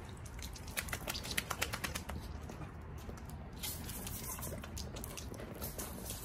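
Garden-hose spray nozzle spattering water onto a chocolate Labrador and the wet concrete while the dog snaps and laps at the stream. There is a quick run of sharp clicks and splashes between about one and two seconds in.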